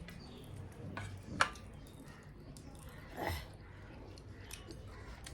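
Eating sounds at a table: a few light clicks of dishes or cutlery, the sharpest about a second and a half in, and a short wet squish about three seconds in.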